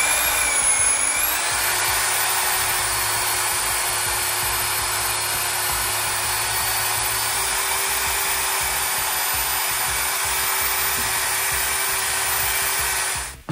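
An electric power tool's motor spinning up to speed, then running steadily with a constant whine, and cutting off abruptly at the end.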